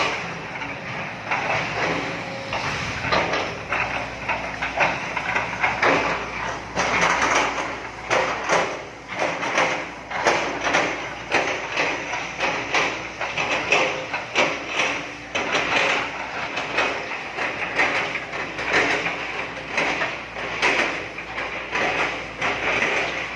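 Heavy machinery clanking and rattling, with many irregular metallic knocks over a continuous mechanical noise.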